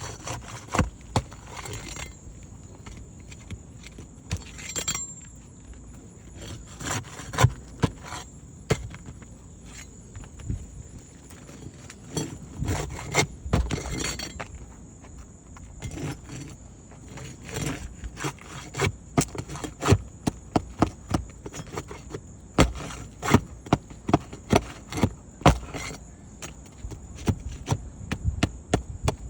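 Asphalt roof shingles being pried up and their nails worked loose: irregular sharp clicks, knocks and scraping of tool and nails against the shingles, more frequent in the second half.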